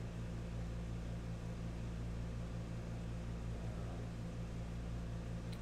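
Steady low hum with an even background hiss, with no other sound apart from a single faint click near the end.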